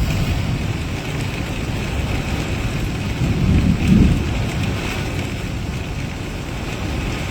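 Heavy rain falling steadily, with a low rumble underneath that swells about three seconds in, peaks around four seconds and fades again.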